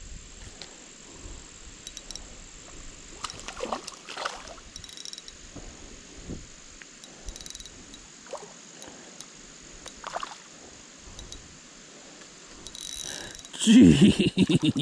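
Steady insect chirring with a few faint clicks and rustles. Near the end a person breathes hard and exclaims loudly.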